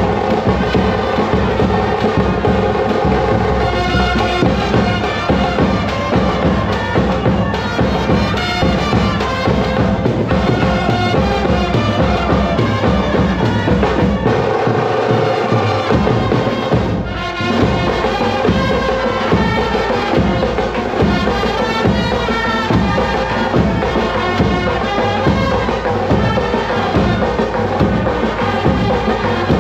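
Live Indian street brass band playing a festive tune: horns over a steady beat from a large bass drum and side drums. The low drum beat drops out briefly about halfway through, then comes back in.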